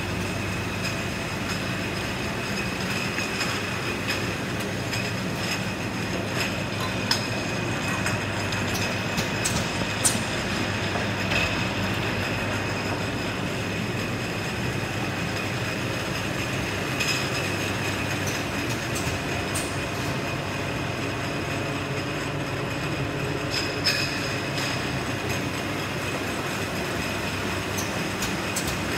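Bottling-line mesh conveyor running steadily, its motor humming with a steady high whine over it, while the glass jars riding it clink sharply now and then.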